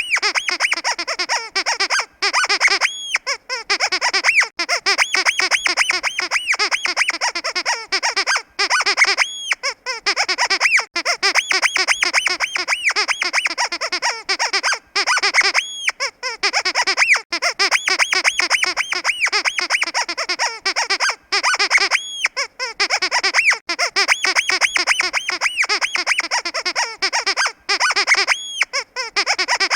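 Rubber squeaky pig dog toy squeezed over and over in quick succession, giving high, honking squeaks. A longer drawn-out squeak comes about every six seconds.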